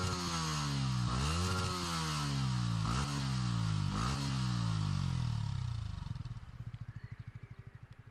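An engine revving: its pitch climbs quickly and then winds down slowly, about four times. Near the end it settles into a low, rapid throb that fades away.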